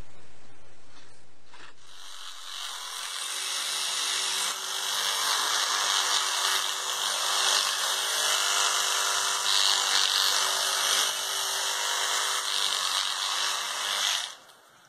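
Electric toothbrush buzzing steadily while it is rubbed on a cat's head and fur, its level wavering as the brush head moves. It starts about two seconds in and cuts off just before the end.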